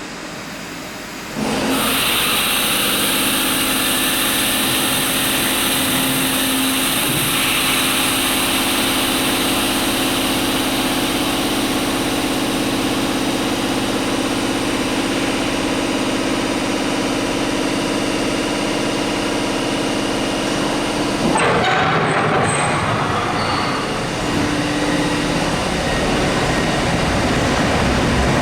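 London Underground battery locomotive's equipment running: it starts suddenly about a second in with a steady whining drone that holds its pitch, then turns into a noisier, rougher sound about 21 seconds in.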